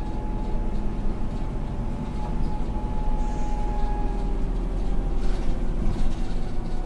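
City bus heard from inside the cabin, its diesel engine giving a steady low rumble with a faint steady whine over it as the bus moves along the street.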